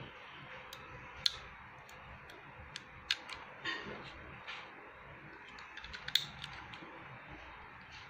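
Plastic clicks and taps from handling a plastic watch security display stand and its sensor cable plug as it is pulled out of the stand and pushed back in. The clicks are scattered and short, with the sharpest about a second in and a quick cluster around six seconds in.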